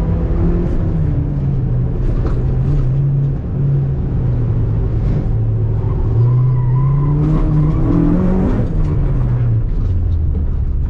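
Honda Civic's swapped B20 VTEC four-cylinder engine heard from inside the cabin, its revs dipping, then climbing for a few seconds and dropping back to a lower, steadier note near the end.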